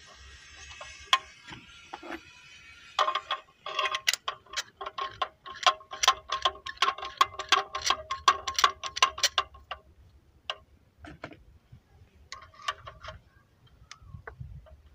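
Ratchet wrench clicking at about three or four sharp, ringing clicks a second as a spark plug is screwed back into a Renault 1.4 engine's cylinder head. It slows to a few scattered clicks near the end.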